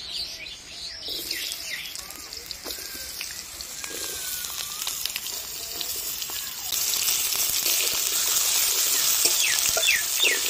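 Potato wedges frying in hot mustard oil in a kadai, sizzling. The sizzle starts about a second in and gets louder about two-thirds of the way through. Near the end a spatula turns the wedges, with a few light scrapes against the pan.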